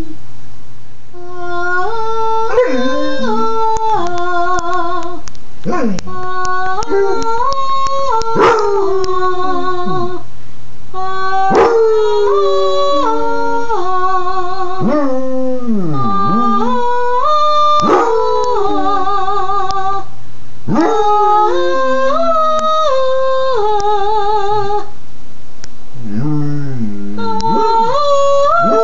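Basset hound howling and yipping along to a melody of held, wavering notes, its cries sliding and falling in pitch between them, several times.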